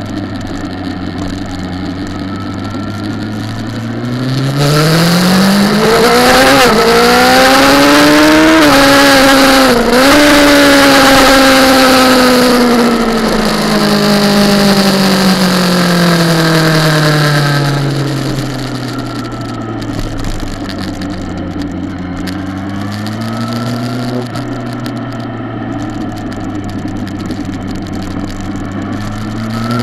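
Kawasaki ZX-10R inline-four engine at full throttle on track: the revs climb steeply out of a slow corner with brief dips as it shifts up, the loudest stretch, then fall steadily as the bike slows, idle low through a corner with a short blip, and climb again near the end.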